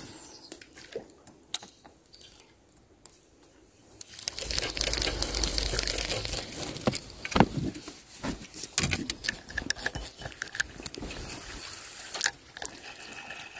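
Spinning reel cranked fast while bringing in a hooked fish: a dense, clicking clatter of reel and handling noise that starts about four seconds in and stops shortly before the end. A few light clicks come in the quieter first seconds.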